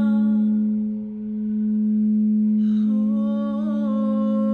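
Large frosted quartz crystal singing bowl rubbed at the rim with a wand, sustaining one steady low tone. A woman's held sung note floats over it, fading out about half a second in and coming back after a breath near three seconds in.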